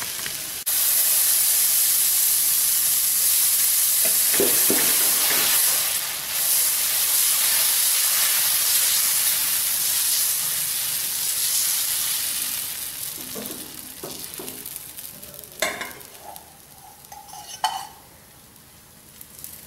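Dosa batter sizzling loudly on a hot tawa as it is spread in circles with a ladle. The sizzle dies down after about twelve seconds, and two sharp knocks follow near the end.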